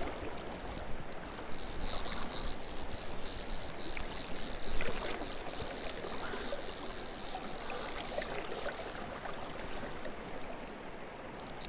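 Shallow river current rushing steadily around a wading angler, with a high buzz from about a second in until about eight seconds in.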